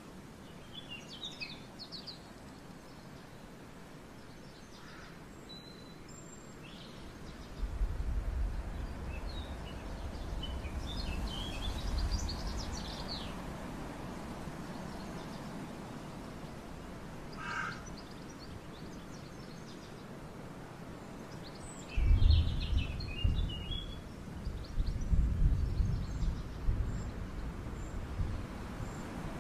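Small birds chirping and calling on and off, with bouts of irregular low rumbling starting about eight seconds in and again about twenty-two seconds in, the second bout the loudest.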